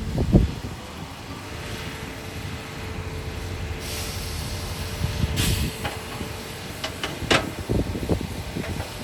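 Heavy earthmoving machinery running with a steady low rumble, with several sharp knocks in the second half, the loudest about seven seconds in.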